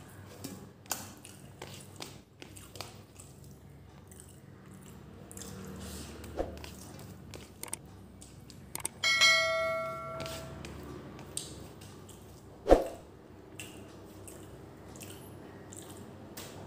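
Close eating sounds: fingers picking rice off a stainless steel plate and chewing, with many small clicks. About nine seconds in, a bright bell-like ding of a subscribe-button sound effect rings for about a second and fades, and near thirteen seconds there is one sharp knock.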